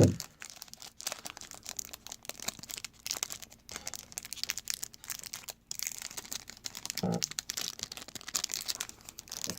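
Plastic trading-card pack wrappers crinkling and rustling as the packs are handled, with an irregular run of crackles.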